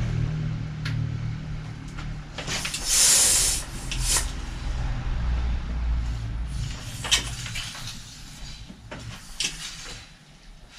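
Bursts of air hissing at a bicycle inner tube's valve while it is pumped up, the longest and loudest about two to four seconds in, with shorter bursts later. The valve is too short for the deep rim, so the pump head seals poorly and air escapes.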